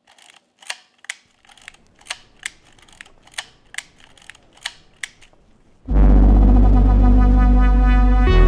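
About ten sharp camera shutter clicks at an uneven pace. Then, about six seconds in, loud music with held chords starts suddenly.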